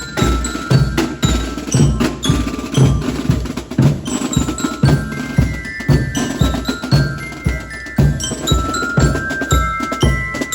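Military march music: a drum keeps a steady march beat of about two hits a second under a high melody.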